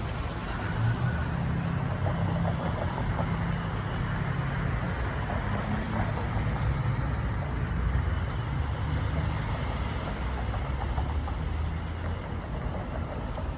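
Urban road traffic, with a motor vehicle engine running in a low steady hum that eases off about twelve seconds in.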